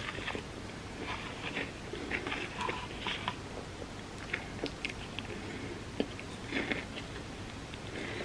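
Close-miked chewing and biting of a soft tortilla dessert lasagna layered with chocolate and peanut butter: irregular wet mouth smacks and small clicks.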